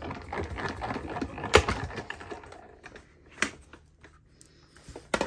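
Die-cutting and embossing machine running a plate sandwich with an embossing folder through its rollers: a run of rapid clicking and rattling for about two and a half seconds, then a few scattered clicks and a loud knock at the end.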